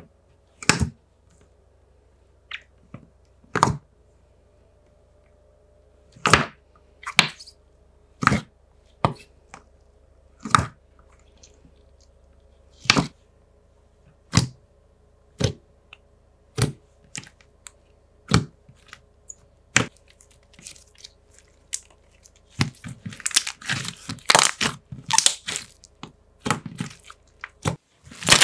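Thick slime being poked and pressed by hand, giving sharp single bubble pops about once a second. From about 22 seconds in it turns into a dense run of crackling sizzles as it is kneaded with both hands.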